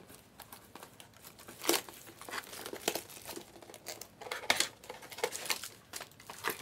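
Plastic wrapping crinkling and rustling as it is handled, with scattered sharp clicks.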